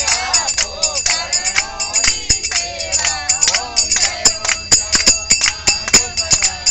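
A group singing a devotional Hindu aarti together, with steady hand-clapping on the beat about twice a second and a continuous metallic jingling over it.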